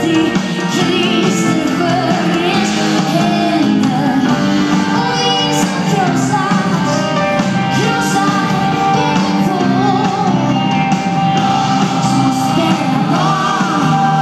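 Live pop band performance: a female lead vocal singing over drums, guitar, upright bass and keyboards, played in a concert hall.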